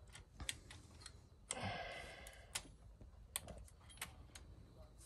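Sharp metallic clicks and rattles of a Meccano model recovery truck's steel parts as its crane boom and winch crank are worked by hand. About a second and a half in comes a brief buzzing rasp lasting about a second, the loudest sound here.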